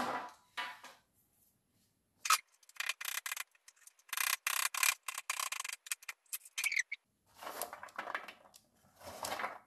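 Knife chopping fresh comfrey roots on a wooden cutting board: a sharp knock about two seconds in, then quick runs of chopping strikes. Near the end the cut root pieces clatter into a paper-lined baking tray.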